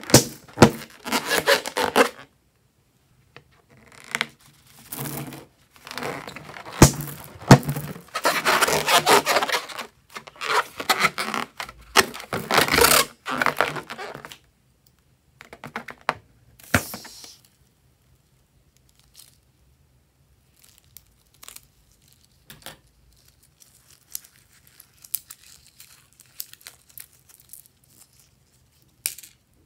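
Hands rubbing and squeezing a filled rubber balloon, the rubber giving loud bursts of rubbing and crinkling noise through the first half. After that only faint scattered clicks and light rustles follow as small plastic beads are picked out of foam slime.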